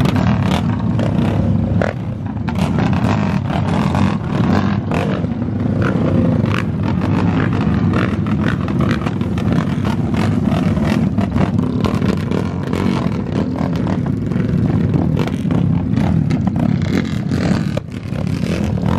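Several sport quad ATV engines running and revving as the quads ride past on gravel.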